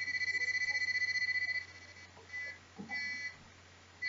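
Two-tone alarm circuit sounding a high-pitched, fast-warbling electronic beep for about a second and a half, then two short beeps, with its frequency control at the lowest setting.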